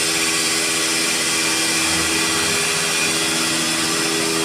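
CNC machine running steadily: a constant machining whir and motor hum with no breaks.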